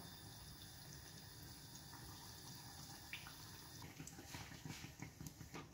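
Faint sizzling and light crackling of dough pies frying in hot vegetable oil in a stainless steel frying pan. The crackles come more often in the last couple of seconds.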